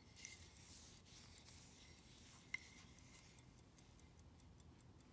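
A 104-year-old Omega pocket watch ticking faintly and evenly, about five ticks a second. Gloved fingers rub against the case for the first three seconds or so, with one small click about two and a half seconds in.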